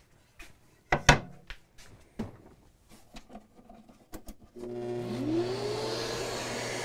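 A board is handled and set down against a miter saw's fence, with scattered knocks and taps, two sharp knocks about a second in being the loudest. About four and a half seconds in, a dust-extractor vacuum hooked to the saw switches on: its motor tone rises as it spins up, then it runs steadily with a rush of air.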